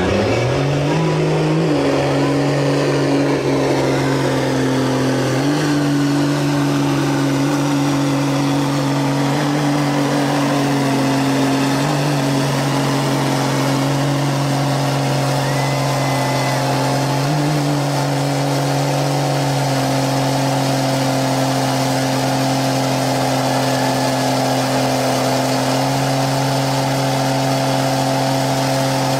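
Lifted mud truck's engine, exhausting through a hood stack, held at high, nearly steady revs as it churns through a mud pit, with a few short steps up in pitch.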